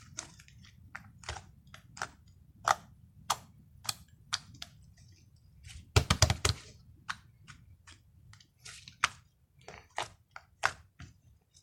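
Soft whipped-cream slime being squeezed and worked by hand, giving irregular sharp clicks and small pops, with a quick run of pops about six seconds in.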